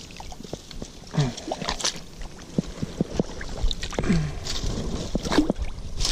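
Shallow pond water sloshing and splashing while a snapping turtle is hauled in on a hand line, with scattered knocks and clicks of handling. Two short low grunts come about a second in and again about four seconds in.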